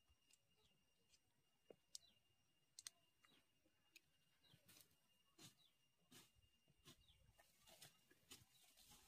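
Faint, scattered clicks and crackles of soil crumbling and roots snapping as ginger rhizomes are pulled up and broken apart by hand, with a thin steady high tone in the background.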